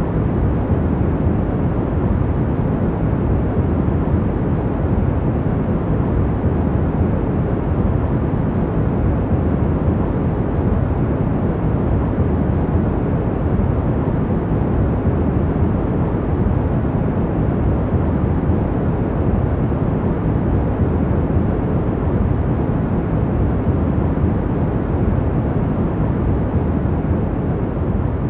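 Steady, deep, even sleep noise, heaviest in the low end with little hiss on top, unchanging throughout.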